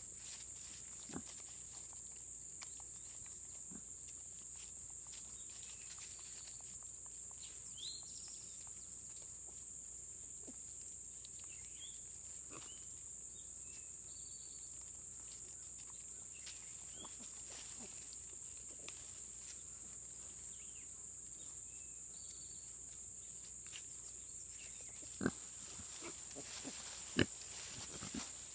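A sow and her nursing piglets grunting softly in short, scattered grunts, with a few louder grunts near the end, over a steady high-pitched hiss.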